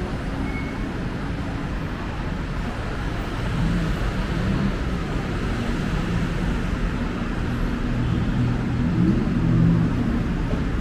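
City street traffic: motor vehicle engines running with a steady low hum and road noise, growing a little louder in the second half.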